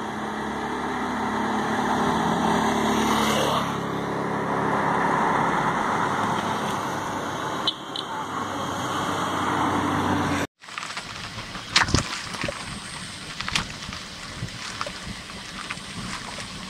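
A car engine running with road noise, its pitch rising over the first few seconds and then dropping. After an abrupt cut, a quieter stretch of tyres on wet gravel with scattered crackles and pops.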